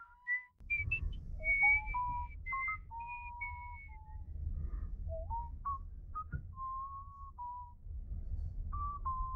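A person whistling a wandering tune, holding single notes and sliding up or down between them, over a faint low rumble.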